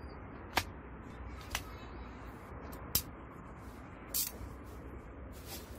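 Five short, sharp clicks and taps of hand tools and parts being handled on an old angle grinder as it is taken apart, about one a second, over a steady hiss.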